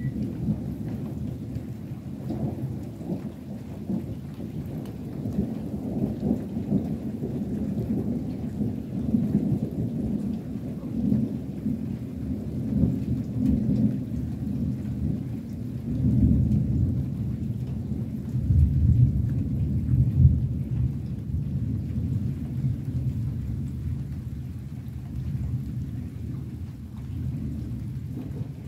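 Distant thunder, a long low rumble that keeps rolling and swells twice, loudest a little past the middle.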